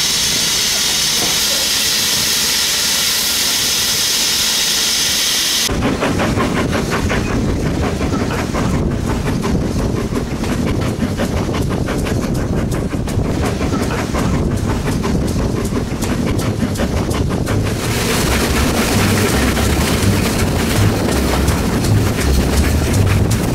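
BR Standard Class 9F 2-10-0 steam locomotive hissing steam loudly for about six seconds; the hiss cuts off abruptly. A train running on the rails follows, with fast clicking, and near the end a louder rumble with uneven low beats.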